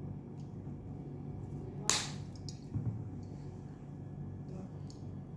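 Crimping tool's cutting blade snipping through the ends of the eight untwisted UTP wires to trim them even: one sharp snip about two seconds in and a fainter click nearly a second later, over a low steady hum.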